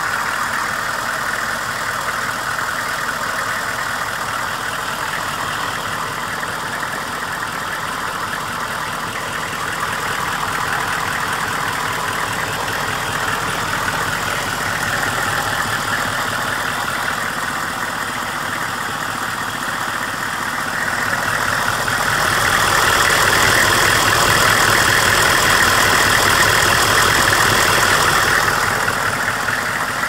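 1999 GMC Savana 3500 school bus engine idling steadily, heard from over the open engine bay. It grows louder for several seconds in the second half, then settles back.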